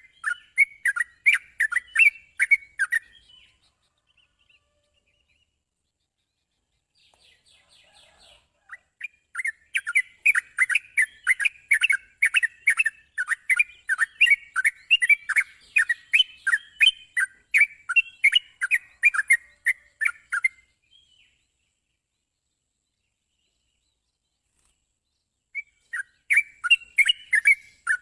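Yellow-vented bulbul (trucukan) singing in quick repeated chirping notes, in three bouts: a short one at the start, a long one through the middle, and another near the end, with silent gaps between.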